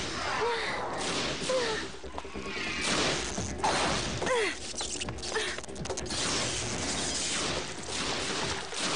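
Animated-series battle soundtrack: background music under crackling and short gliding electronic zaps from monsters' laser fire.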